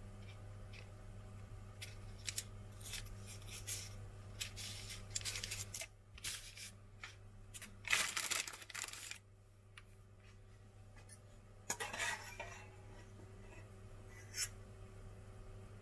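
Baking parchment paper crinkling and rustling as it is handled, in a run of short crackles, the loudest about eight seconds in and another cluster about twelve seconds in, with a single sharp tick near the end.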